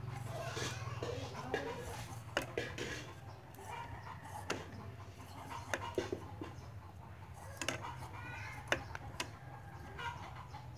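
Chickens clucking now and then, with scattered sharp clicks and taps and a steady low hum underneath.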